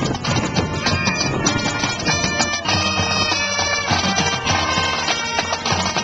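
High school marching band playing, winds holding full chords over percussion.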